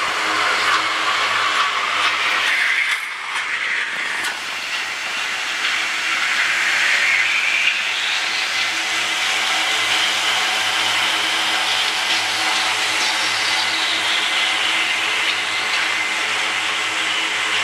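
Mechanical lure of a greyhound track running along its rail: a steady rushing hiss with a whine that climbs in pitch over the first several seconds and falls away later.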